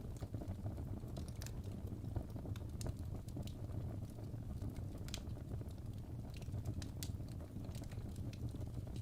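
Wood fire in a fireplace crackling: irregular sharp snaps and pops from the burning logs over a steady low rumble of the flames.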